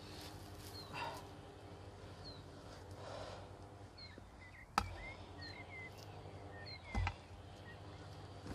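Soft rustling of soil and plants being handled while eggplant seedlings are planted by hand, with two sharp knocks about five and seven seconds in. A small bird chirps short, repeated calls in the background.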